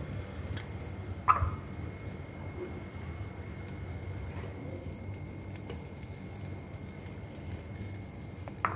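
Bread and egg frying in a nonstick pan on a gas burner: a steady low burner rush with light sizzling. One sharp clink of a utensil against the pan about a second in.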